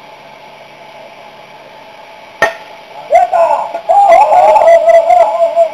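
A single sharp crack of a bat hitting a baseball about two and a half seconds in, then players shouting loudly.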